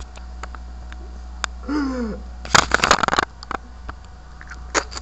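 A man's short falling vocal sound, then a loud burst of clattering knocks and clicks from the camera being handled close to its microphone, over a steady low electrical hum.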